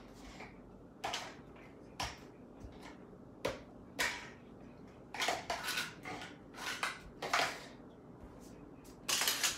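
Irregular sharp clacks and clatters of small hard objects being handled, roughly one a second, loudest in a short cluster near the end.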